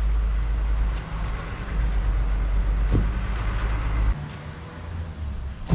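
Outdoor urban ambience with a steady low rumble that cuts off suddenly about four seconds in, a faint click around three seconds, and a sharp knock at the very end.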